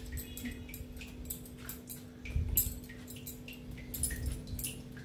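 Soft plops of fried vadas being dropped into bowls of rasam, with light clinking of bangles on the moving hand. A faint steady hum runs underneath.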